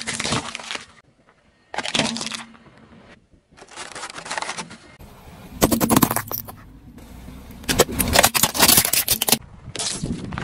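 Car tyre rolling over and crushing small plastic containers, among them a toothpick holder: bursts of cracking and crunching, in several short takes that start and stop abruptly.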